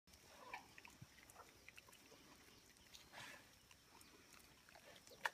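Faint grunts and rustling from a feral pig and her piglets, with a sharp click near the end.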